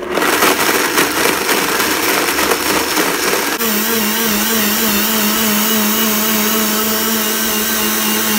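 Blendtec blender starting up and blending whole cashews with oil and nutritional yeast into a paste: a rough grinding clatter as the nuts break up, then about three and a half seconds in it abruptly settles into a steady, even motor tone as the mix turns smooth.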